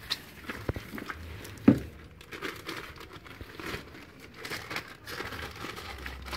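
Plastic wrapping crinkling and rustling as hands unwrap a new car tail lamp and open a small plastic bag, with one sharp knock a little under two seconds in.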